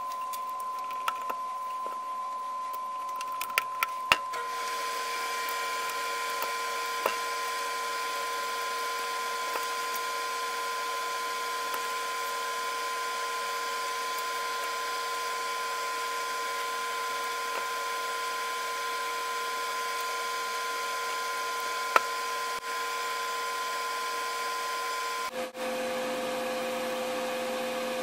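A steady mechanical whine over a hiss, like a small motor or fan running, with its pitch pattern shifting abruptly about four seconds in and again near the end. A few sharp clicks of small metal and plastic thermostat parts being handled punctuate it, the loudest about four seconds in and another later on.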